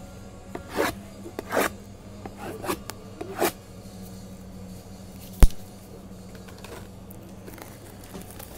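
Sealed trading-card boxes being ripped open: several short tearing and scraping strokes of wrap and cardboard, then a single sharp click about five and a half seconds in.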